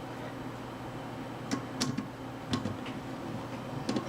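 A screwdriver driving a screw into a CPU fan mount: a handful of irregular, sharp little clicks and taps of metal on metal and plastic, over a faint steady hum.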